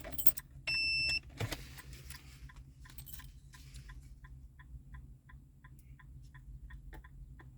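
A single short electronic beep, then soft, even electronic ticking at about three ticks a second over a low steady hum.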